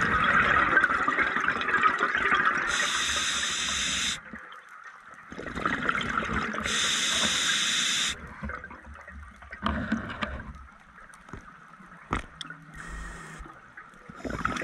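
Scuba regulator breathing underwater: two long bubbling exhalations, each ending in a sharp hiss from the regulator, then a quieter spell with scattered clicks and one short hiss near the end.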